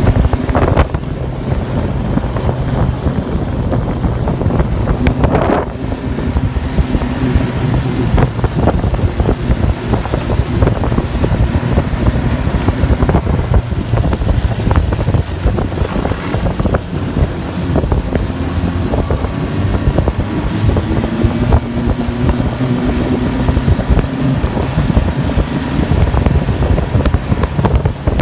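Snowmobile engine running steadily while riding along a trail, its pitch drifting a little up and down with the throttle, with wind buffeting the microphone.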